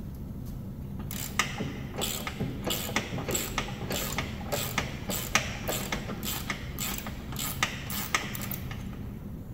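Ratchet wrench turning a bolt on a riding-mower deck spindle, the pawl clicking in quick strokes, about three a second, from about a second in until near the end.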